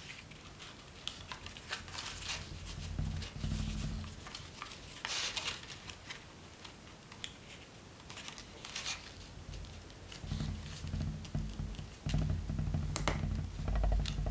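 Elephant-hide paper being folded and creased by hand: irregular rustles and crinkles with a louder rustle about five seconds in and a sharp crinkle near the end, over a low rumble of hands pressing the paper down on the mat.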